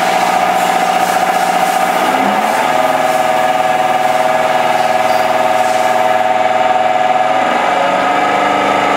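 Diesel fuel-injection test stand running at speed, driving a 10 mm stroker CP3 high-pressure fuel pump: a loud, steady mechanical whine whose pitch shifts about two seconds in and again near the end.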